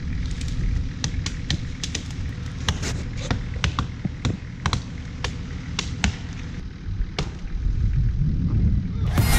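Two Fiskars axes chopping into a fallen tree trunk: sharp, irregular strikes from two choppers at once, about two to three a second. Music comes in just at the end.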